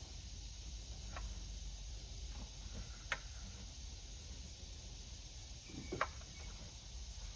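A few light clicks and taps, the loudest about six seconds in, over a low steady hum.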